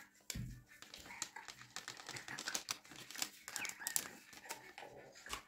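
Faint crinkling and light clicking of a small paper packet being shaken out over flour in a metal mesh sieve.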